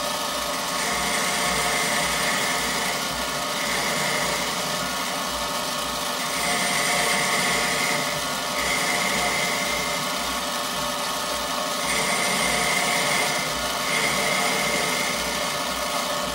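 Small bench metal lathe running steadily while a lathe tool turns down a red-and-black ebonite rod to form the tenon for an M10 thread. A higher hiss from the cut comes and goes in passes of a second or two, about six times, as the tool is fed in and out by hand.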